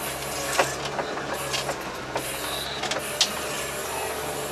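Veter all-terrain vehicle's engine running steadily under light load, heard from inside the cab, with a few sharp knocks and rattles from the cab as it drives over snow.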